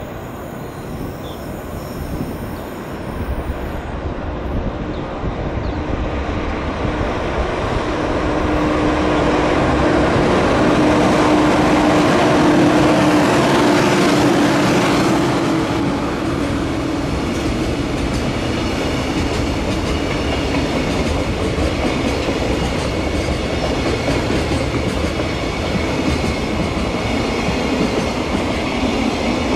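Electric freight locomotive approaching and passing close by, its whine dropping in pitch as it goes past about halfway through. A long string of freight wagons follows, rolling by with a steady rumble and clickety-clack of wheels over rail joints.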